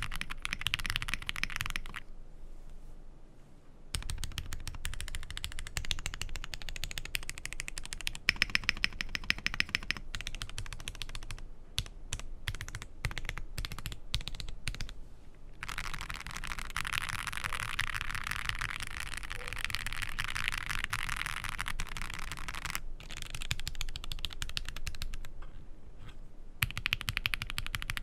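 Typing on a Zoom65 EE V2 mechanical keyboard: fast runs of keystroke clacks, with a short pause a couple of seconds in and a stretch of slower, separate keystrokes about halfway through.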